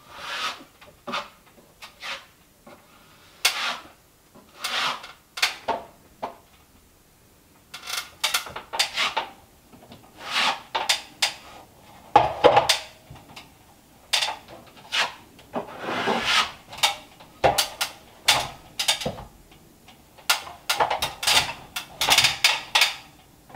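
A drywall taping knife scraping joint compound, on the drywall and against the edge of a mud pan. It goes in short, irregular strokes, with a short pause about seven seconds in.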